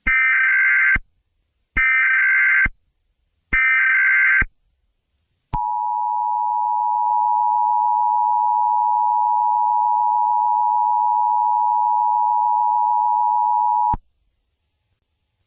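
Emergency Alert System tones: three buzzy data bursts of about a second each (the SAME header that encodes the alert), then after a short gap the EAS two-tone attention signal, one steady tone held for about eight seconds before cutting off suddenly.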